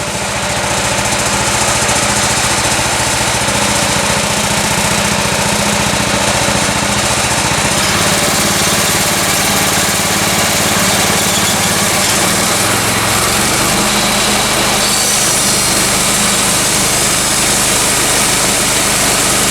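Gas engine of a Woodland Mills 126 band sawmill running steadily while sawing a log, its note shifting lower about eight seconds in.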